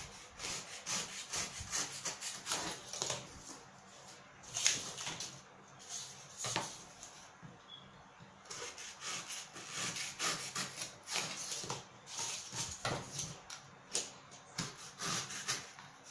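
Snap-off utility knife cutting and scraping through corrugated cardboard in short, irregular scratchy strokes, with a brief pause about halfway.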